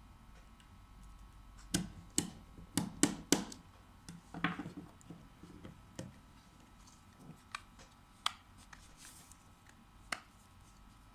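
Sharp clicks and taps of small tools and phone parts being handled during a smartphone repair, a quick cluster of them a couple of seconds in, then single clicks every second or two.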